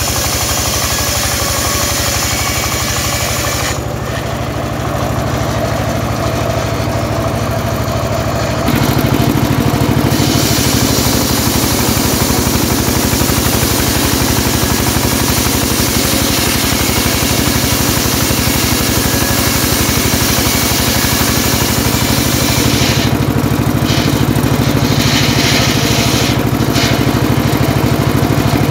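Engine-driven homemade circular saw bench running steadily while its blade rips long lengths of timber, the hiss of the cut dropping out for a few seconds near the start and then carrying on. The sound steps up louder about nine seconds in.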